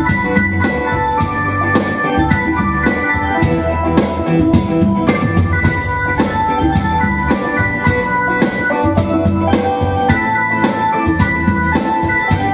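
Background music: a keyboard melody in steady held notes over a regular drum beat of about three strokes a second.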